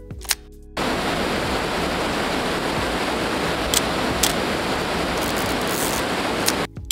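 Water rushing steadily over a small concrete weir in a creek, starting about a second in and cutting off abruptly near the end. Brief music with a click plays before it.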